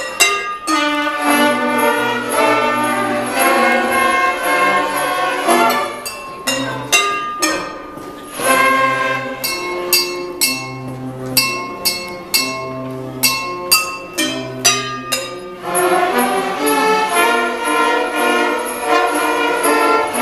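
Children's orchestra playing, with kitchen glasses, pots and pans struck as percussion. A run of sharp strikes stands out through the middle, where the orchestra plays more sparsely.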